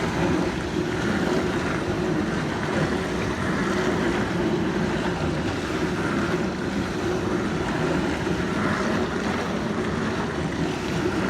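Whirlpool dishwasher running: a steady rush of water inside the tub over the hum of its motor, without a break.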